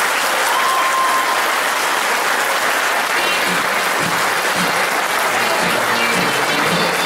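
Audience applauding, with the dance music faintly under it and coming back in near the end.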